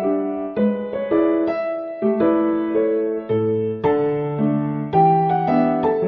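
Background piano music: single notes and chords struck about every half second, each ringing and fading.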